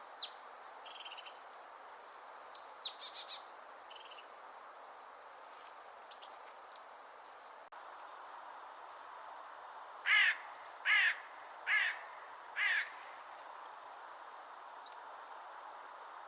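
Small forest birds giving short high chirps and calls, then four loud, harsh rasping screeches about a second apart, typical of a Eurasian jay, over a steady background hiss.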